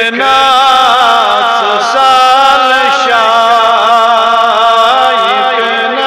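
A man's voice chanting melodically in long held notes that waver and slide in pitch, a religious devotional chant in a sermon.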